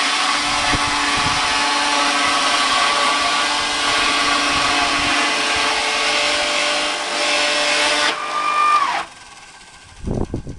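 Chain sawmill running steadily under load as its chain cuts along a log; about nine seconds in its pitch falls and it shuts off abruptly.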